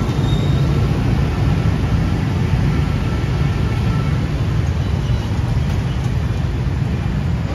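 Steady street traffic: a continuous low rumble of passing vehicles on a busy city road.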